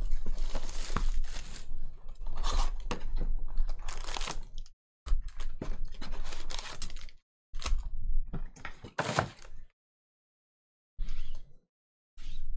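Cardboard hobby box and foil-wrapped trading card packs being handled: crinkling and rustling as the packs are pulled out and set down on a table in stacks. The sound comes in irregular bursts separated by silent gaps, with a few sharp clicks.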